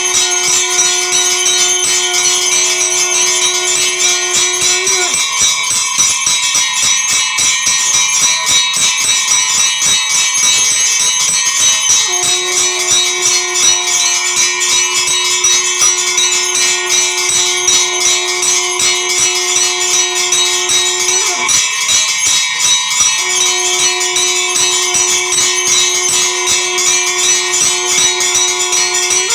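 Temple bells ringing rapidly and without pause during puja. A steady lower note is held underneath for several seconds at a time and breaks off twice, about five seconds in and about twenty-one seconds in.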